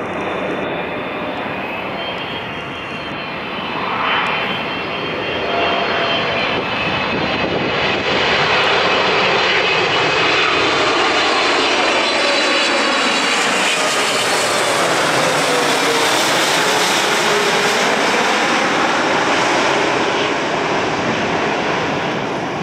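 Boeing 777-300ER's twin GE90-115B turbofans on landing approach, growing louder about eight seconds in as the airliner passes low overhead. The engine whine falls in pitch as it goes by.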